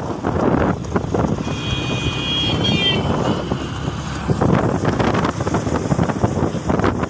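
Wind buffeting the microphone over the road noise of a motorbike riding at speed. About a second and a half in, a high steady tone sounds for about a second and a half, then falls in pitch at its end.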